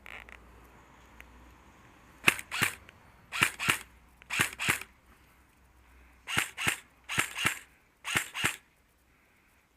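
Airsoft gun firing: twelve sharp pops in six pairs, the two shots of each pair about a third of a second apart.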